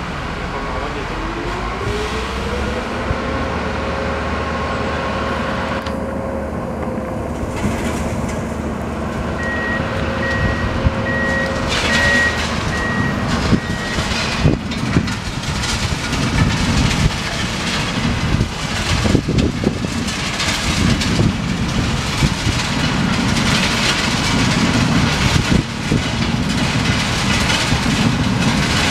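Track maintenance machine working the ballast: its diesel engine runs with a whine that rises about a second in and holds, a beeping alarm sounds for a few seconds near the middle, and then the plow wings scrape and crunch through the crushed stone with clattering knocks.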